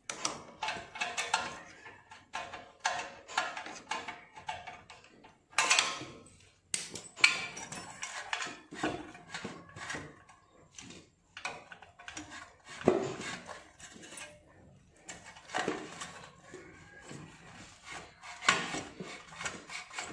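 Irregular metallic clicks, clinks and knocks from a socket ratchet working the mounting bolts and a steel motorcycle muffler being handled into place, during fitting of a Benelli Leoncino 250's stock muffler.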